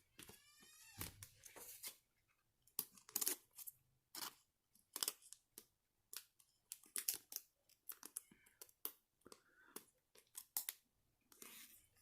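Faint plastic rustling and scraping in many short bursts: a trading card being worked into a plastic card sleeve, the sleeve crinkling with each push.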